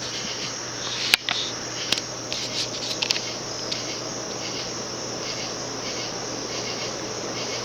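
Early-1980s View Fan-built Moss Tropical Breeze 36-inch ceiling fan with its small cast-iron motor, running at high speed on a 4-speed wall control. It makes a steady low hum under a pulsing high-pitched buzz, with a sharp click about a second in.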